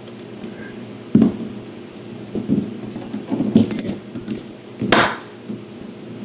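Small metal parts of a Leatherman Free T4 multitool clicking and clinking as they are handled and set down: a few separate knocks, one with a brief metallic ring about three and a half seconds in.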